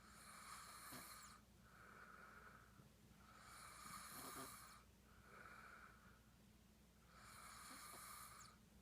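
A sleeping man snoring: three snores about three seconds apart, each followed by a softer, shorter breath.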